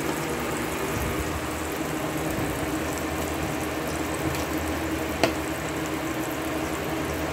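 Butter and oil sizzling steadily in a stainless steel pan on an induction cooker. About five seconds in, a single sharp tap of a kitchen knife against a plastic cutting board.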